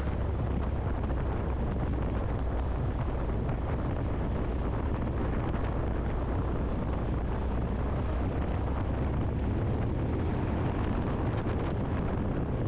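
Christen Eagle biplane's four-cylinder Lycoming engine running steadily at taxi power, a low drone mixed with wind rumble on the airframe-mounted microphone.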